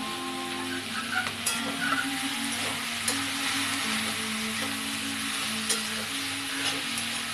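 Pumpkin and potato sticks sizzling in hot mustard oil in a metal kadai while a spatula stirs them, scraping and knocking against the pan a few times. Soft background music with sustained notes plays underneath.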